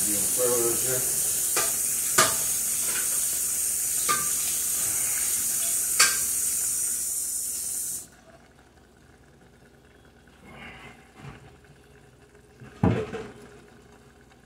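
Ramen noodles and broccoli sizzling in a hot pan, with a few taps of a utensil as they are stirred. The sizzle cuts off suddenly about eight seconds in, and a pot or pan clanks near the end.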